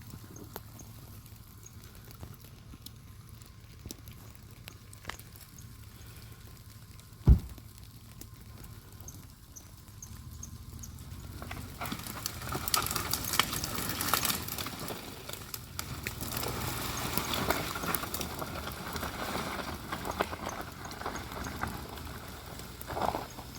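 Brush and branches being handled and dragged: scattered snaps and one heavy thump about seven seconds in, then a dense crackling of twigs and branches from about twelve seconds in.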